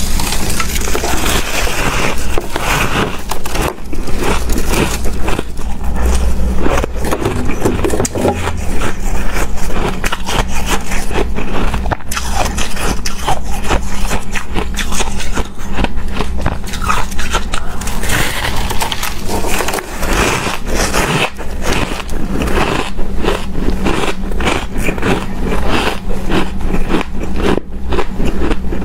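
Close-miked crunching of snowy shaved ice, scooped up in big scoops and bitten: dense crackling and scraping with no let-up.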